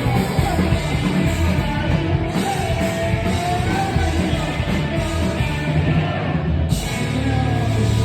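Rock band playing live and loud, with a singer shouting and singing over the full band.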